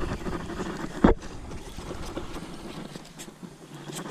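Handling noise aboard a plastic fishing kayak: one dull knock about a second in, over a low rumble of wind on the microphone that fades out, with a couple of faint clicks near the end.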